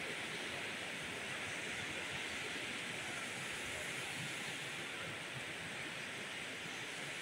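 Steady, even rushing of surf and shallow seawater, without breaks or distinct surges.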